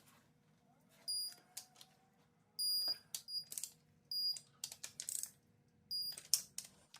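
Torque wrench set to 34 ft-lb tightening connecting-rod cap bolts: ratchet clicks, and four short high-pitched beeps that signal the set torque is reached.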